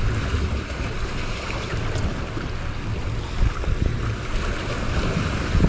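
Wind buffeting the microphone, with waves washing against a small boat's hull on a choppy sea: a steady rush with an uneven low rumble.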